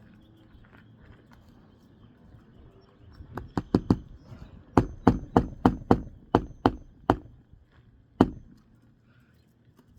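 Hammer striking roofing nails on an asphalt-shingle roof: three quick blows, then a steady run of about nine blows at roughly three a second, and a last single blow near the end.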